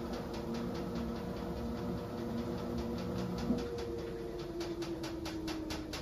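Front-loading washing machine in its first rinse, turning the drum to rinse out remaining detergent. Its motor gives a steady whine that drops slightly in pitch near the end, over a fast, even patter of about six a second, with one brief knock about halfway through.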